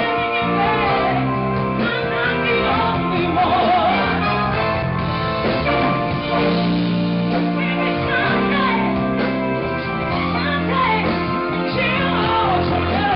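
Live band playing, with a wavering lead melody line over guitar and sustained bass and chord notes that change every couple of seconds.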